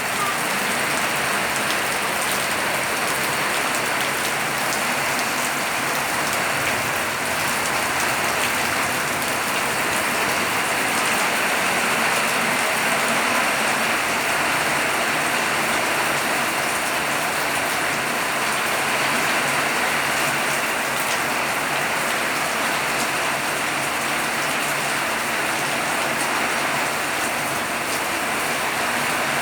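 Steady rain falling and pattering on surfaces, an even downpour that holds at the same level throughout.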